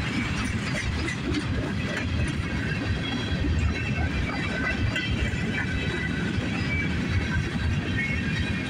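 Freight train cars rolling past close by onto a steel girder bridge: a steady low rumble of wheels on rail with clickety-clack from the rail joints.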